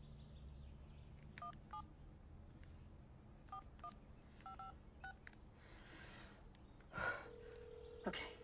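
Smartphone keypad touch-tone beeps as a number is dialled, about seven short two-note beeps spaced unevenly. Near the end the phone is raised and a steady ringing tone sounds from the earpiece as the call connects.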